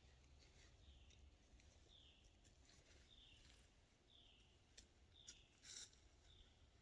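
Faint woodland bird calling a short down-slurred note about once a second, with scattered light ticks and a brief crackle near the end.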